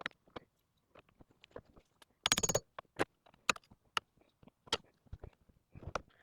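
Scattered clicks and clinks of the steering-shaft nut being put back on over the steering-wheel hub adapter, with a short rattling cluster about two seconds in and single sharp clicks after it.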